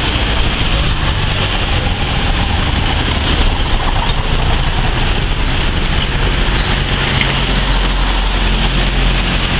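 Steady street traffic noise: a continuous rumble of passing vehicles with a low engine hum.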